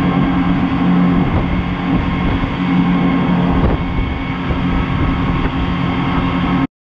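Boat engine running steadily, heard from on board: a loud, even drone with a low hum. It cuts off abruptly near the end.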